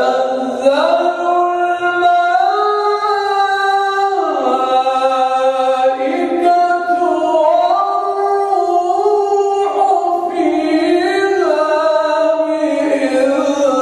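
A man reciting the Quran in the drawn-out melodic style of tajwid recitation, one unaccompanied voice holding long notes that step up and down in pitch.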